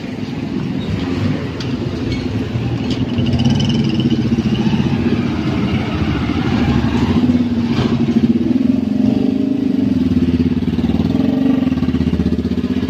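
Motorcycle engines of tricycles (motorcycles with sidecars) running in street traffic, a steady engine note that rises and falls a little in pitch.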